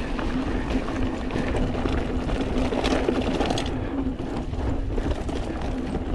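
Mountain bike riding down a dirt trail: tyres rolling and rattling over the ground, wind rumble on the camera, and a steady mechanical buzz throughout.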